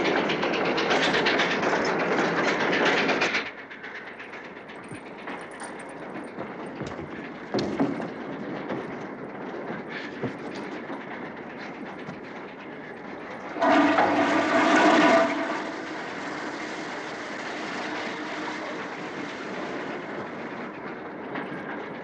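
Steam train running: a loud clatter for the first few seconds, then a quieter steady rumble. About fourteen seconds in, a steam whistle blows for about a second and a half.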